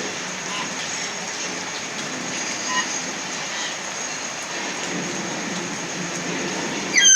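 Steady rain falling, with a few faint short bird calls in the first seconds. Right at the end a hill myna gives one loud whistle that falls steeply in pitch.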